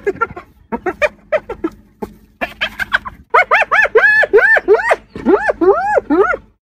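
Spotted hyena laughing: several bouts of rapid, high-pitched giggling notes, each note rising and falling in pitch, with longer, more drawn-out notes in the later bouts.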